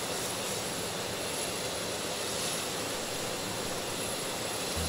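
GE9X turbofan engine running steadily on a test stand: an even rushing noise with a thin, high, steady whine on top.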